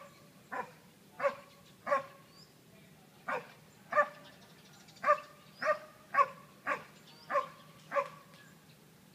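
German Shepherd dog barking repeatedly, about eleven short barks in quick runs of roughly one every two-thirds of a second, with a brief pause a couple of seconds in.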